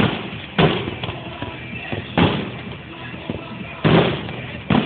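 Aerial fireworks shells bursting overhead: about five sharp bangs at uneven intervals, each fading away quickly.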